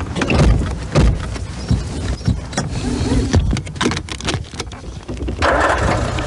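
A car being driven roughly: engine and road rumble with many irregular clunks and knocks from the car jolting.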